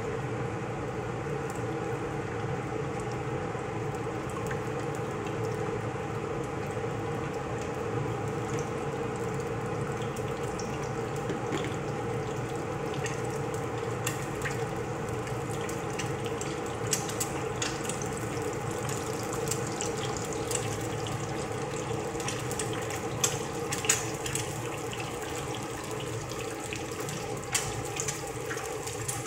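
Two eggs frying in hot oil in a nonstick pan on a gas burner, cooked until fairly crisp: a steady sizzle over a low hum, with spits and crackles that grow more frequent in the second half.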